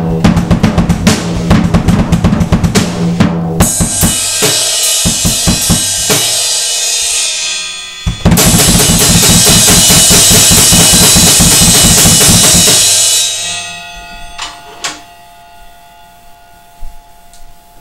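Drum kit played fast, its bass drum unmuffled with the stuffing taken out. After a few seconds the cymbals take over in a long, loud crash wash with drums under it, then the playing stops and the cymbals ring out with a last couple of hits.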